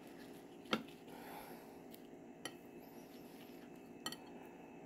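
Faint, sparse clinks on a ceramic plate, three short taps a couple of seconds apart, as pumpkin flowers are dipped in beaten egg, over a faint steady hum.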